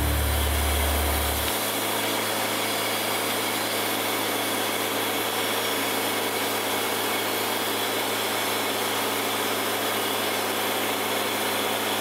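Wood-Mizer portable band sawmill running steadily, an even engine and blade noise without pauses. Low music notes end in the first second and a half.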